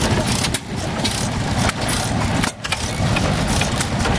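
Antique hit-and-miss stationary gas engine running, firing in uneven beats with two brief lulls.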